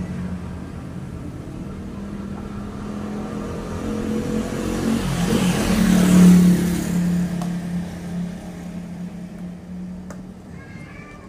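A motor vehicle passing on the road: its engine hum grows louder to a peak around the middle, then fades away.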